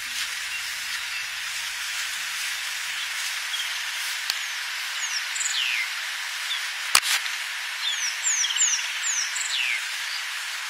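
Outdoor ambience: a steady hiss, with bird calls over it. The calls are short whistles falling in pitch, a few about halfway through and a cluster near the end. One sharp click, the loudest sound, comes about seven seconds in.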